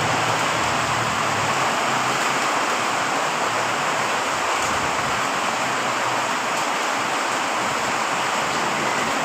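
Very heavy rain pouring down as a steady, dense hiss, with a low hum underneath that is strongest in the first second or two.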